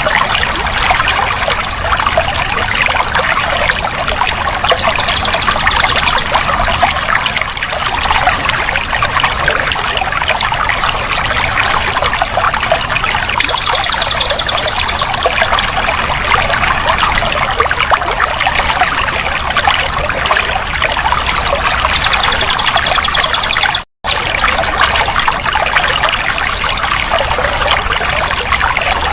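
Water running and trickling steadily, a continuous splashing flow. A short high trill comes in about every eight or nine seconds. The sound cuts out completely for a moment about three-quarters of the way through.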